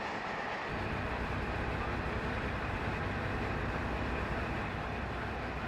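KiHa 40 diesel railcar approaching on the line, heard as a steady low rumble that starts about a second in.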